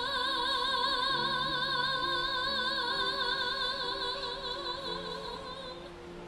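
A woman singing one long, high held note with a wide vibrato, over accompaniment notes that change beneath it; the note tapers off near the end.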